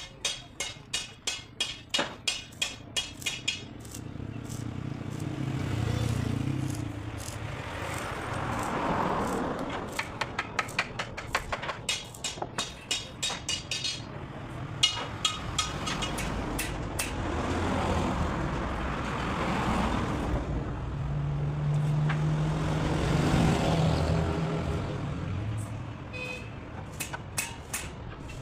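Rapid repeated knocks, about three a second, in several short runs, typical of hammering on wood. Between the runs a vehicle's engine and road noise swell and fade several times.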